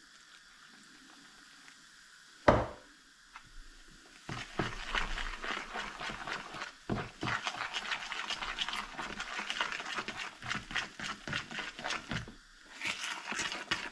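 Whisk beating thick beer batter in a plastic mixing bowl: fast, irregular clicking and scraping strokes from about four seconds in, stopping briefly near the end. A single sharp knock comes about two and a half seconds in.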